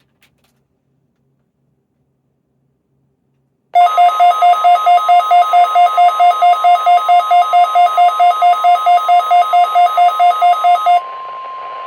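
A weather radio receiver's alert beeping rapidly, about four beeps a second, set off by the NOAA Weather Radio warning alarm tone, a steady 1050 Hz tone sounding under it. The beeping starts about four seconds in and stops near the end, leaving the steady alarm tone over radio static.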